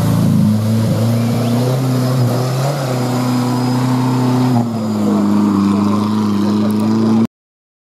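Engine of a roll-caged off-road car running steadily as it drives through mud. Its note drops a little about four and a half seconds in, and the sound cuts off suddenly near the end.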